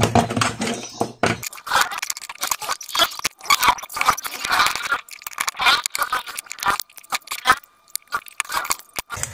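Hair flat iron's plastic housing being handled and pressed back together: irregular scraping, clicks and crackles of plastic parts rubbing and snapping into place.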